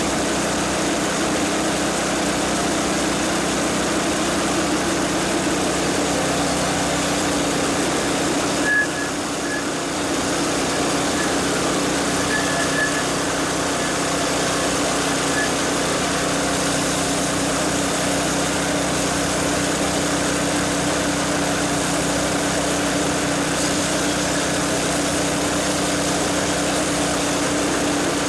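McLane reel mower's small gasoline engine running steadily, driving the reel with lapping compound on it for backlapping against the bed knife. A brief knock and a short dip in level about nine seconds in.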